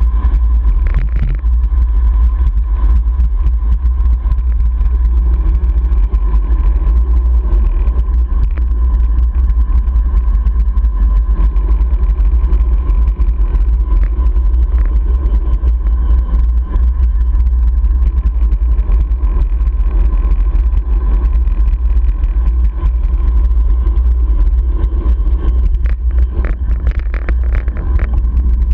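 Wind buffeting the microphone of a camera mounted on a bicycle on a fast downhill run: a loud, steady low rumble. A faint steady tone runs under it.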